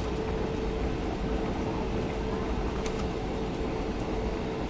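Steady airliner cabin noise on the ground: a low rumble with a steady hum, from the engines and cabin ventilation, with a faint click about three seconds in.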